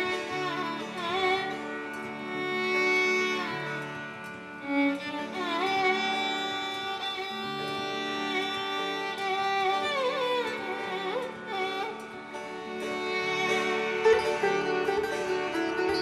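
Music: a Carnatic-style violin plays a melody with frequent pitch slides over steady held drone tones.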